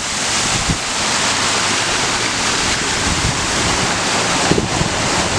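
Water cascading over the boulders of a recirculating garden waterfall, a steady full rushing splash.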